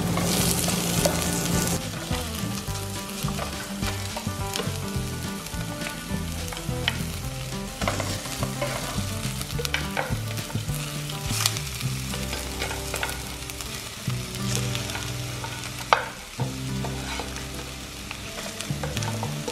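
Chopped red onion and garlic frying in oil in a stainless steel pot, a steady sizzle that is strongest for the first couple of seconds. A plastic spoon stirs and scrapes through it, knocking sharply against the pot now and then, loudest about sixteen seconds in.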